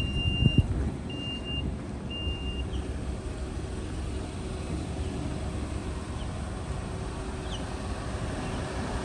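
Mitsubishi Outlander's power tailgate warning beeper sounding three short, even beeps about a second apart, then a steady outdoor background noise.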